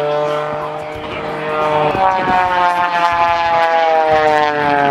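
Single-engine aerobatic propeller plane's engine and propeller droning loudly during aerobatic manoeuvres. The pitch holds steady, jumps up about two seconds in, then slides steadily down.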